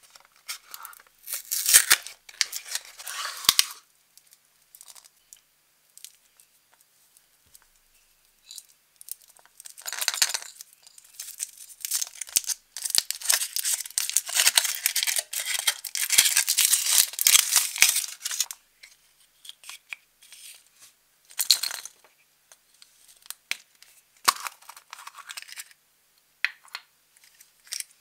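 Packaging torn open and rustled by hand in bursts: a small cardboard box opened, then the foil wrapper crinkled and peeled off a chocolate egg in a long stretch of rustling, with sharp clicks between.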